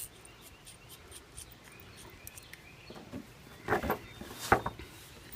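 Loose bolts and hardware being handled: light clicks and scratches, then a few louder knocks a little under 4 s in and one sharp knock about half a second later.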